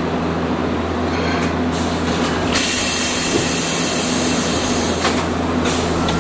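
Running sound of a Hiroshima Electric Railway 800-series streetcar heard from inside the car, very noisy: a steady low hum and rolling rumble on the rails. About two and a half seconds in, a loud hiss joins the hum and holds.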